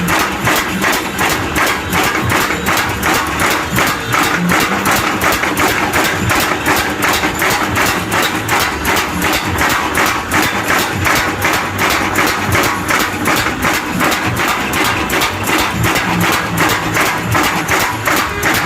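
Electric power hammer in a blacksmith's forge, striking rapidly and evenly at about four to five blows a second over the hum of its motor.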